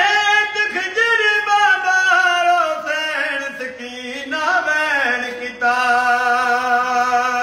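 Elderly man singing a noha, a devotional lament, unaccompanied and alone. He holds long high notes, wavers through a run in the middle, and settles on a long steady lower note near the end.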